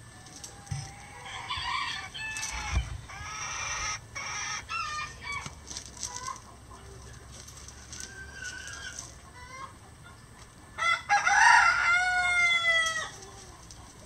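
Roosters crowing, with shorter chicken calls overlapping in the first few seconds. The loudest crow comes about eleven seconds in, its drawn-out end falling in pitch.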